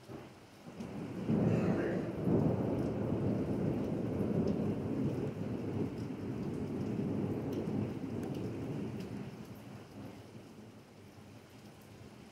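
A long roll of thunder over steady rain. It builds quickly about a second in, rumbles deep for several seconds, then fades away near the end.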